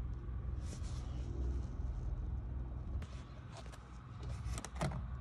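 A cardboard template handled against a van's steel sill, giving a few light taps and scrapes near the end over a steady low rumble.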